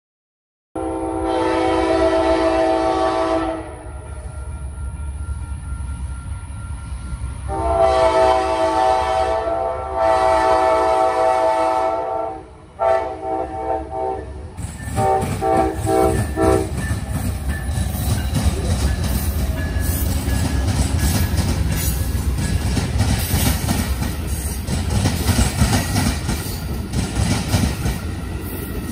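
Amtrak passenger train locomotive horn sounding a chord of several tones in two long blasts, then a run of shorter choppy blasts, as it approaches a road crossing. About halfway in, the train reaches the spot and runs past: a heavy rumble with the rapid clickety-clack of the bilevel Superliner cars' wheels over the rail joints.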